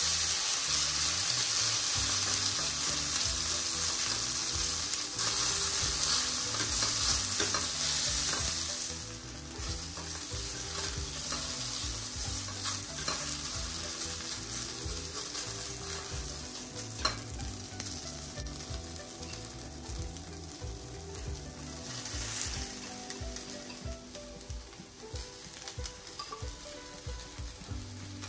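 Marinated konjac strips frying in rapeseed oil in a hot frying pan, stirred with chopsticks. The sizzle is loudest for the first eight or nine seconds after the strips hit the oil, then settles to a softer steady frying sizzle with a few light taps of the chopsticks on the pan.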